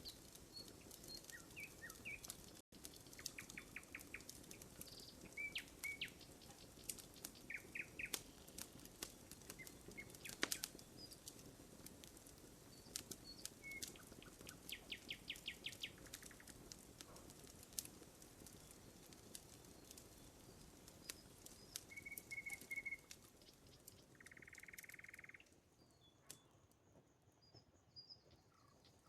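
Campfire crackling with frequent sharp pops, while small birds chirp and trill in the background. A steady buzzy note lasts about a second a little past two thirds of the way through, and after it the crackling thins out.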